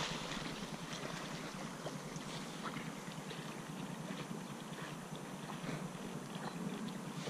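Steady wind on the microphone and through dry reeds, with faint water sloshing from a black labrador swimming across the pond, and light scattered ticks of reed stems.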